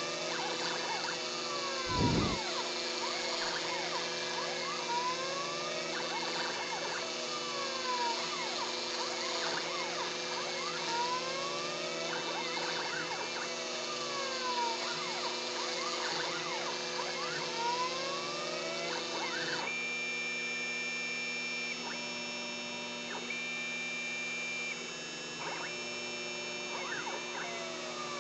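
Homebuilt CNC router's stepper motors whining in pitches that repeatedly rise and fall as the axes speed up and slow down, over a steady mechanical hum. A brief low thump comes about two seconds in, and past the middle the glides give way to longer held tones.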